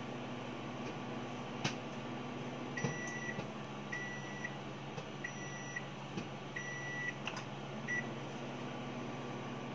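Sharp AX-GA100 microwave oven running with a steady hum while popping a bag of popcorn. From about three seconds in it beeps five times, about a second apart, the last beep short: its end-of-cooking signal. A couple of sharp clicks sound as well.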